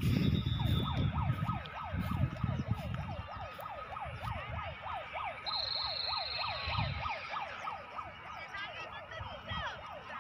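Emergency-vehicle siren in fast yelp mode, its pitch sweeping up and down about four times a second. A low rumble is heard over it in the first couple of seconds.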